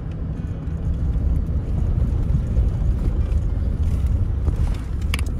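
Car driving: a low, steady rumble of engine and road noise, with a few faint clicks near the end.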